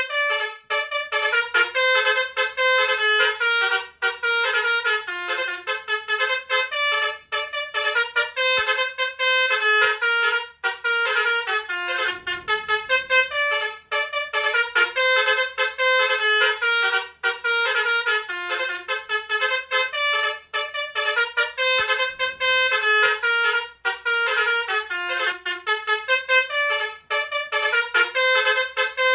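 Bus telolet horn, a Basuri multi-trumpet horn, playing a fast melody of quickly changing notes almost without a break.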